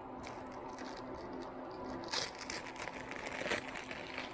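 Crinkling plastic packaging being handled, with louder crackles about two seconds in and again about three and a half seconds in, over a faint steady hum.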